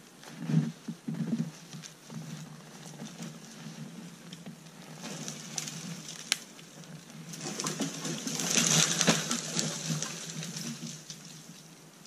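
Folding hand saw rasping through a thin dead tree trunk in deep snow, after a few crunching steps in the snow about half a second to a second and a half in. The sawing grows to its loudest about eight to nine seconds in, as the trunk gives way, then dies down.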